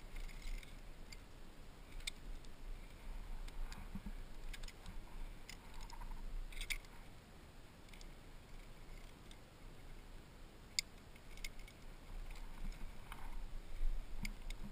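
Sparse metallic clicks and clinks of climbing hardware, carabiners and a quickdraw handled and clipped to a piece of protection in a crack. They come a few seconds apart over a faint steady hiss.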